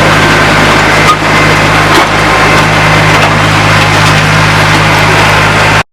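Tractor engine running steadily at a constant speed, with a low hum under a noisy wash. It cuts off abruptly near the end.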